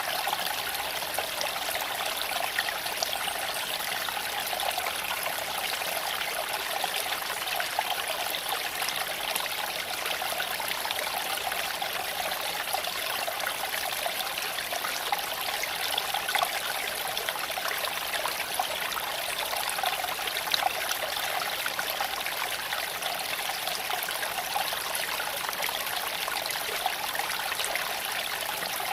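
Creek water flowing and trickling over stones, a steady, even rush with scattered small sharp ticks.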